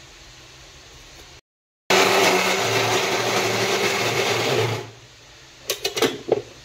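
Electric mixer-grinder running in one burst of about three seconds, grinding cooked jackfruit into a paste in its steel jar. The motor starts abruptly about two seconds in and stops. A few quick knocks and clicks follow near the end.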